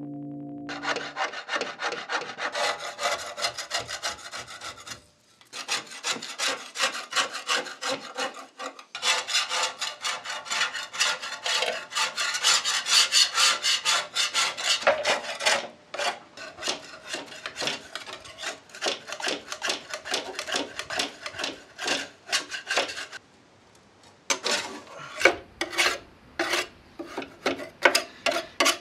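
Hand wire brush and scraper working rust, paint and body filler off the steel of a Series 1 Land Rover front grille panel, in rapid back-and-forth rasping strokes. It pauses about five seconds in and again about twenty-three seconds in, then goes on with slower, separate scrapes near the end.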